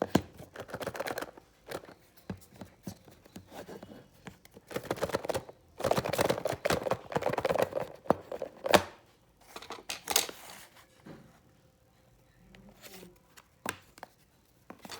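Packaging of an earbuds box being worked open by hand: irregular tearing and crinkling, the longest stretch about six to eight seconds in, with a few sharp snaps and clicks.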